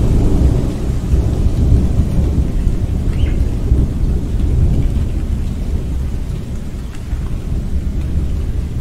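Thunderstorm: a long, deep rumble of rolling thunder over steady rain, easing off a little after the middle.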